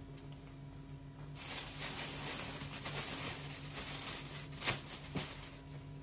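Thin black plastic bag rustling and crinkling as clothes are pushed down into it, starting about a second and a half in, with a couple of sharper crackles near the end.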